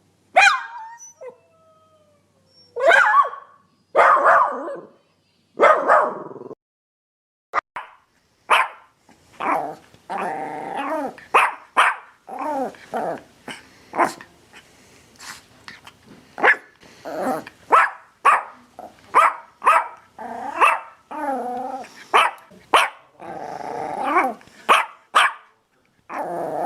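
Dog barking: a few loud single barks spaced a second or so apart, then after a short pause a long run of quick barks mixed with growling.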